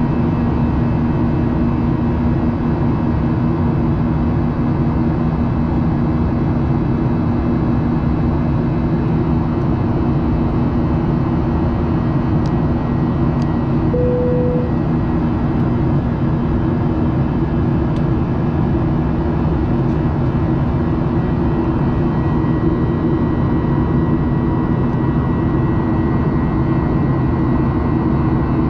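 Steady cabin noise of a jet airliner in flight: an even, unbroken drone of engines and airflow with a low hum. A brief faint tone sounds about halfway through.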